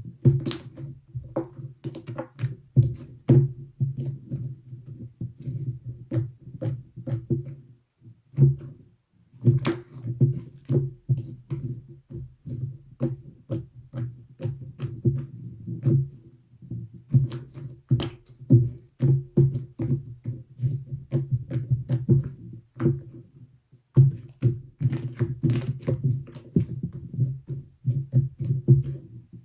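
Slime being squeezed and kneaded by hand, making rapid irregular wet clicks and pops, with short pauses about eight seconds in and again near twenty-four seconds.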